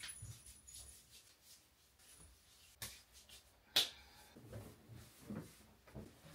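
Quiet room with faint handling noises: soft low knocks and rustles, and two sharp clicks about three and four seconds in, from small toiletry items being picked up and set down on a bathroom counter.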